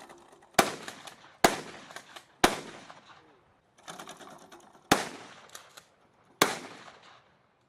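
Five single gunshots at an outdoor shooting range, fired at uneven intervals, each sharp crack trailing off in an echo.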